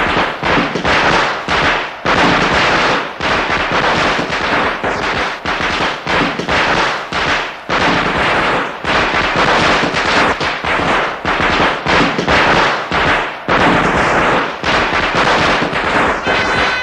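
A long string of firecrackers going off, a loud dense run of sharp cracks with no let-up. Near the end a wind instrument begins sounding steady held notes over the cracking.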